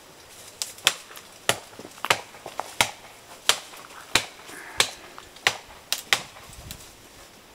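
Axe strokes chopping into a tree trunk, a sharp knock each time the blade bites the wood, about three strokes every two seconds with a few lighter hits between, stopping about a second before the end.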